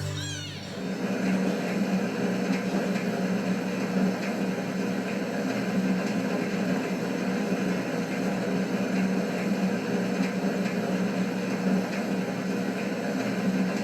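A steady mechanical hum with a low drone, like a household appliance or motor running, that cuts off abruptly near the end.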